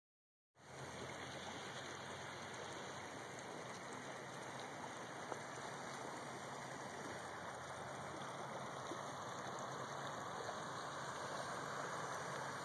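Steady rush of flowing floodwater, an even hiss with no distinct splashes, starting after a half-second of silence; a single brief click about five seconds in.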